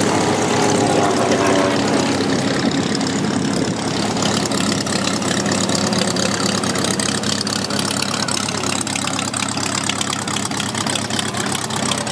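Aircraft engine running steadily, a loud drone whose pitch shifts in the first few seconds.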